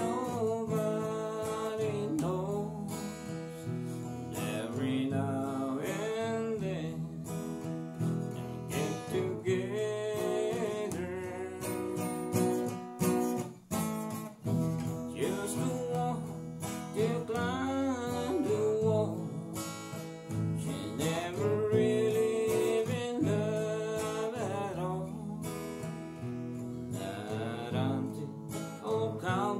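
Acoustic guitar strummed and picked, playing a country song, with a man's voice singing along at times.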